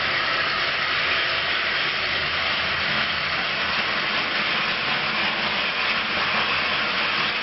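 Battery-powered toy train running along plastic track: a steady whirring of its small motor and wheels.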